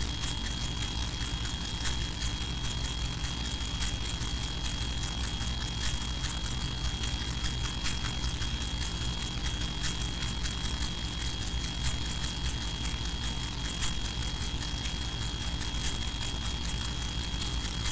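Steady low hum with a thin, steady high-pitched whine and faint scattered ticks; no voices.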